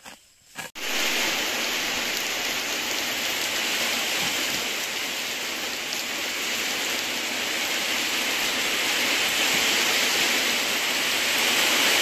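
Steady rain, an even hiss that starts abruptly about a second in.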